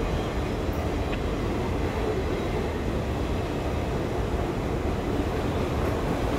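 Cars of a Norfolk Southern auto rack freight train rolling past, a steady rumble of steel wheels on rail.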